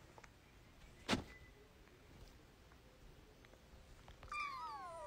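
A cat meowing once, a long drawn-out call that falls in pitch and then rises and holds, starting near the end. A single soft knock sounds about a second in.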